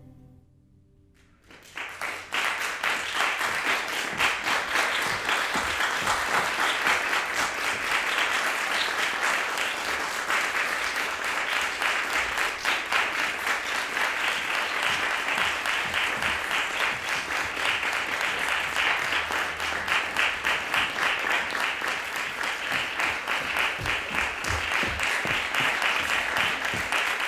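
An audience applauding: after a second or so of near silence, clapping from many hands breaks out about two seconds in and carries on steadily.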